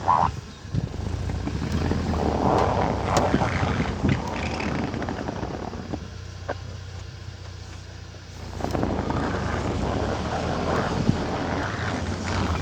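UAZ Patriot running and rolling at full steering lock in four-wheel drive, heard from outside: a steady low engine hum with louder stretches of rushing noise early on and again from about two-thirds of the way through, with a quieter lull between. No knocking comes from the transmission; the slight binding in tight turns comes from the axles having no free differential.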